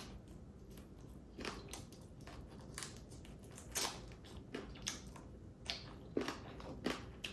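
Close-miked eating of whole crab: chewing, with sharp crunches and cracks of crab shell every second or so.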